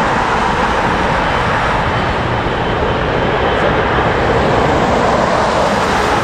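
Airbus A380's four turbofan engines at takeoff thrust: a loud, steady rushing noise.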